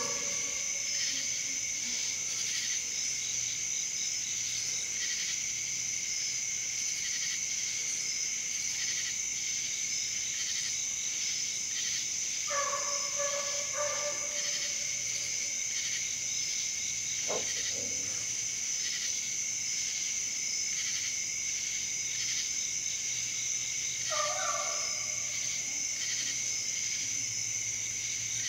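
Steady chorus of crickets with a Walker hound's bawling trail voice, the sound of a hound running a deer, cutting through twice: a long drawn bay a little under halfway through and another near the end, with a single short chop between them.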